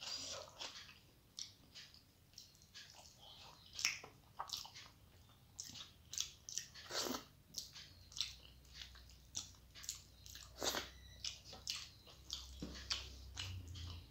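Close-up mouth sounds of a person eating rice and fish curry by hand: chewing with irregular wet smacks and clicks, several a second.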